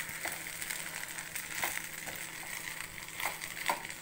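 A wooden spatula stirring and scraping broken-wheat upma with grated coconut in a nonstick pan, a few sharper scrapes about a second apart over a steady frying hiss.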